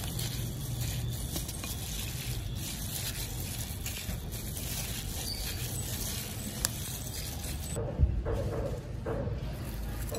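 Gloved hand tossing chicken pieces and green vegetable stalks in dressing in a glass bowl: wet squelching and scraping with the crinkle of the plastic glove. A sharp knock comes about eight seconds in.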